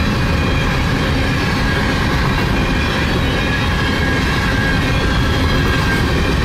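Empty coal cars of a freight train rolling past at speed: a loud, steady rumble of steel wheels on rail, with a thin high squeal running through it.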